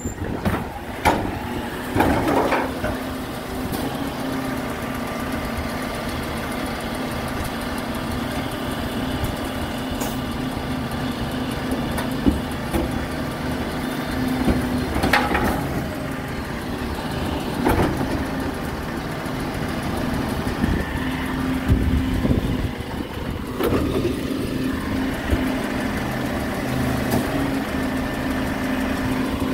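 Recycling truck's engine running steadily at a constant pitch, with occasional knocks and clanks every few seconds.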